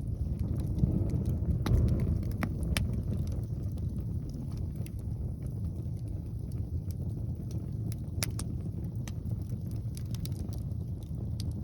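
Wood fire burning with sporadic sharp pops and crackles, under a low rumble of wind buffeting the microphone that swells about a second or two in.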